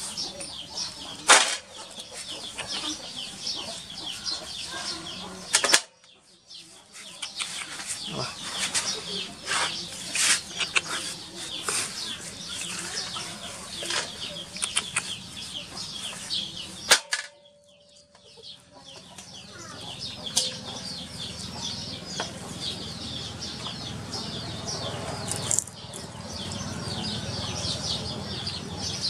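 Dense scratching and rustling as hands scrape up and gather wriggling larvae on a tiled floor, a crackle of many small ticks. The sound cuts out abruptly twice.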